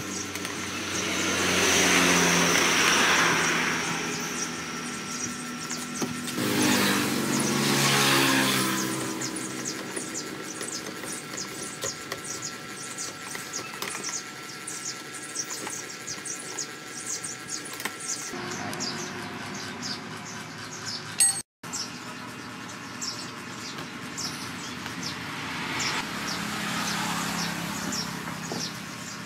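Vehicles passing by in the background, three times: each is a swell of engine noise that rises and fades over a few seconds, the middle one falling in pitch as it goes by. Between them a faint steady hum and rapid faint high chirping carry on.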